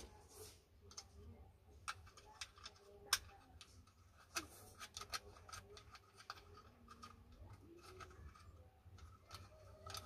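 Faint, scattered clicks and light taps from a Hyundai Starex sliding-door handle assembly being fitted together by hand: its plastic housing and small metal latch parts knock and catch against each other, with one sharper click about three seconds in.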